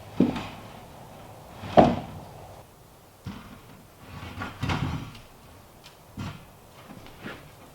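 Irregular knocks and clunks of wood, about six in all, with the loudest about two seconds in and a short cluster of clunks near the middle.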